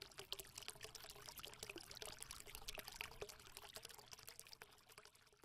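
Faint trickling, pouring water with many small droplet ticks, fading out near the end.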